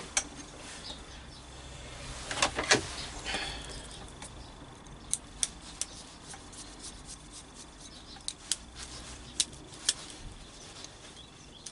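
Scattered small clicks and knocks of hands working on wiring and plug parts, a few louder ones about two and a half seconds in, then light sparse ticks.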